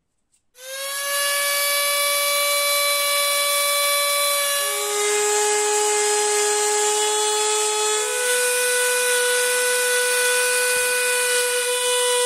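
Handheld rotary tool spinning a fluted carbide burr against a stacked-leather knife handle: a high, steady motor whine with a hiss, starting abruptly about half a second in. The pitch drops a little about five seconds in, then rises again about three seconds later.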